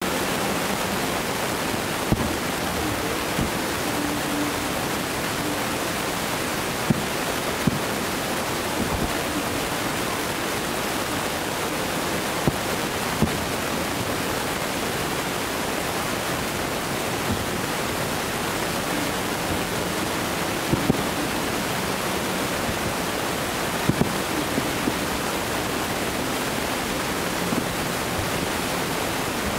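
Distant aerial fireworks shells bursting, heard as short, sharp thuds every few seconds over a steady rushing hiss.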